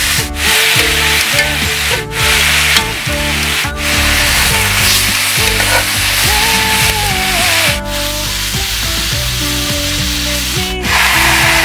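Pork steaks sizzling as they fry in oil in a cast-iron skillet, with metal tongs turning and shifting the meat now and then. The sound breaks off for a moment several times.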